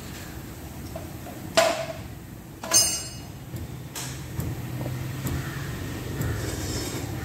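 Two sharp metallic clinks about a second apart, the second one ringing, as the aluminium cylinder head of a Tata Nano engine is handled on the engine block, over a steady low hum.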